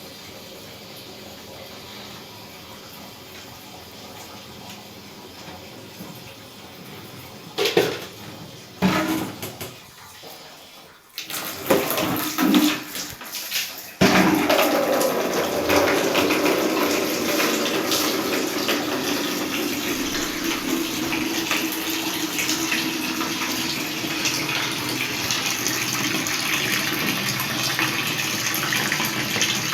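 A few knocks and clatters, then about halfway through a water tap is opened and water gushes steadily into a container.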